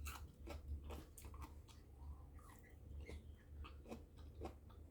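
Close-up chewing and biting of mango: a string of short, irregular wet clicks and crunches from the mouth.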